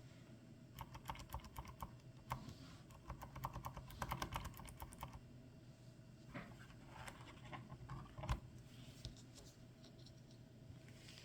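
Faint typing on a computer keyboard: a quick run of key clicks for about four seconds, then a few scattered key presses.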